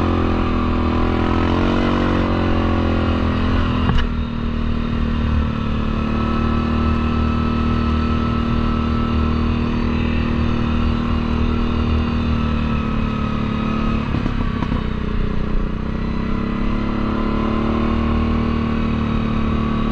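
Four-wheeler ATV engine running steadily under way, with a sharp knock about four seconds in. Its note dips and then climbs again about two-thirds of the way through.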